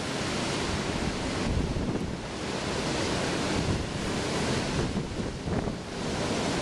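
Rough storm surf breaking and washing up the beach in a continuous roar that swells and eases every couple of seconds, with strong wind buffeting the microphone.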